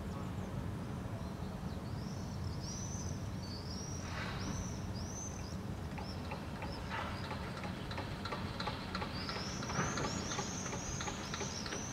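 Small birds calling in runs of short, high, arching chirps, one run a couple of seconds in and a longer one near the end, over a steady low rumble of city traffic. A scatter of light clicks comes in between.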